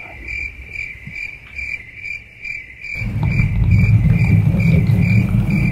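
Cricket chirping, a steady run of evenly spaced high chirps, the comic 'crickets' cue for an awkward silence. A loud low rumble comes in under it about three seconds in.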